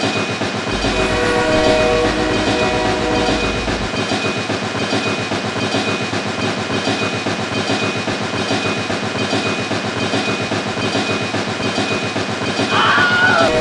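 Steady, fast rhythmic clatter like a train running on rails. A horn-like chord of steady tones sounds from about one to four seconds in. A short wavering, squeaky glide comes near the end.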